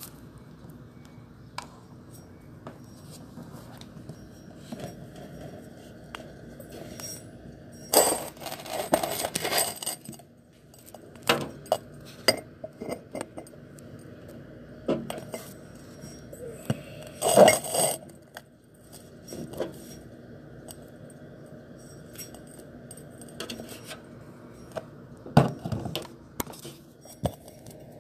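Scattered clicks, knocks and clinks of small hard objects over a steady low hum, with louder clusters about 8 seconds in and again about 17 seconds in.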